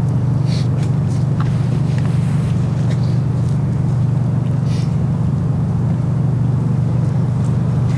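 A steady low rumble at an even level, with a few faint, short clicks and rustles above it.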